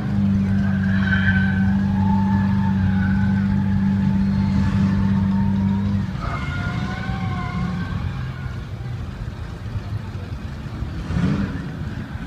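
Sports car engines at idle: a loud, steady idle that cuts off suddenly about six seconds in, then quieter running with a short rev near the end.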